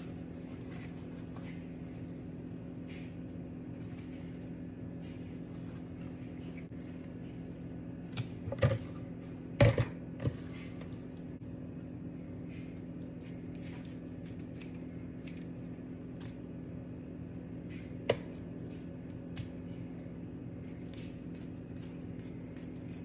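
Kitchen scissors snipping through raw redfish fillets on paper towels, with faint scattered clicks and a few sharp knocks about eight to ten seconds in and once more about eighteen seconds in. A steady low electrical hum runs underneath.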